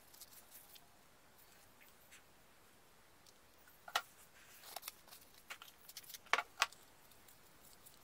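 Sharp clicks and light knocks as a plastic TV remote is handled and set on a wooden table, among soft rustles of tissue paper. The sounds are faint and scattered, with a quick cluster of clicks in the second half and two louder ones close together.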